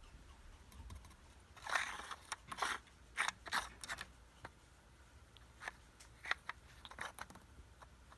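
A kitten pawing and nosing at a plastic treat-puzzle toy: small plastic clicks, scrapes and crunches from the toy and its dry kibble. They come in a busy flurry for a couple of seconds, then as a few scattered single clicks.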